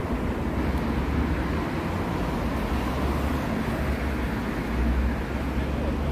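Steady rumble of city road traffic, with a deep low-end drone throughout.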